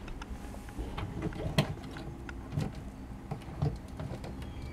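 Light knocks and clicks of a small hinged access door under a boat's helm being pulled open by its knob, about one a second, the sharpest about one and a half seconds in, over a steady low hum.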